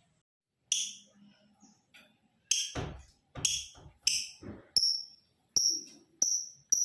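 Male lovebird giving a series of short, shrill chirps, about one a second at first and coming faster near the end, building toward a rapid chattering trill.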